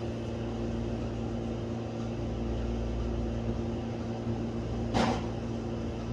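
Steady mechanical hum of a running appliance motor, with one brief sharp sound about five seconds in.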